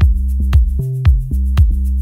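Melodic deep house track playing back at 115 BPM. A four-on-the-floor kick, each one dropping in pitch, lands about twice a second over a deep sustained bassline, held synth notes and light percussion ticks.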